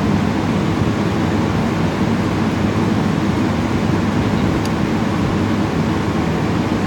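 Split air conditioner outdoor unit running, compressor and condenser fan giving a steady, loud low hum while it is charged with freon.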